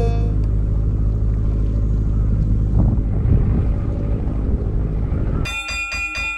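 Low, steady boat-engine rumble across the water. About five and a half seconds in, a short chiming music jingle starts over it.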